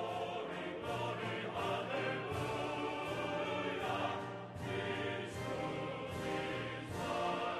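Background music with a choir and orchestra, sustained chords that shift every second or so.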